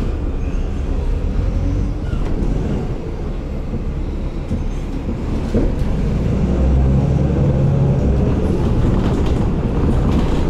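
Inside a city bus under way: a steady low engine and road rumble. About six seconds in it grows louder, with a rising engine note.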